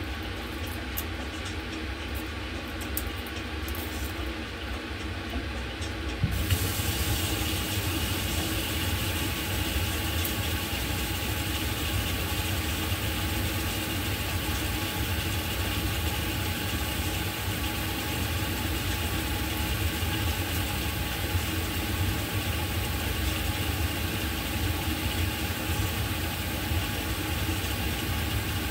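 Steady low hum with a hiss over it, which turns fuller and louder about six seconds in and then holds steady: kitchen background noise.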